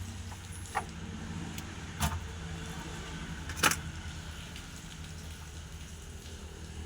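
Three short sharp clicks or knocks, the last the loudest, over a steady low hum.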